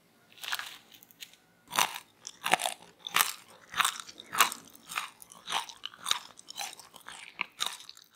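Crispy fries, coated in corn starch and fried twice, being bitten and chewed close to the microphone: a run of sharp crunches at a steady chewing pace, about one every two-thirds of a second.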